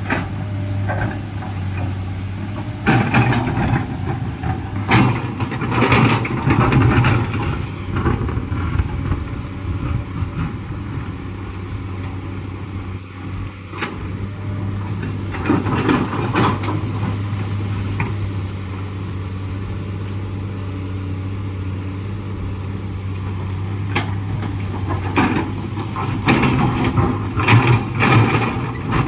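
Komatsu PC210LC excavator's diesel engine running steadily, with louder spells of working noise and clattering knocks at intervals as the machine digs.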